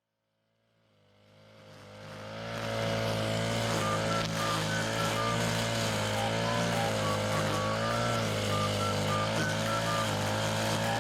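A small engine running steadily, fading in over the first two to three seconds, with a light melody of background music over it.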